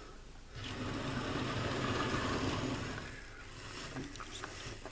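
Hornby K1 OO-gauge model locomotive running along the track with its train: a steady whir of its small electric motor and wheels. It gets louder about half a second in and drops back after about three seconds.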